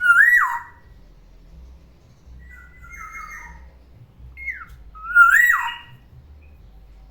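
Black-naped oriole singing: two loud fluting whistles, one at the start and one about five seconds in, each sliding up and then dropping away with a harsh edge, and a softer raspy call between them.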